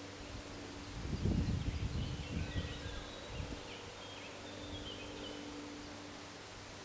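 Woodland ambience with faint birds chirping. A low muffled rumble of buffeting on the microphone rises about a second in and fades out over the next two or three seconds.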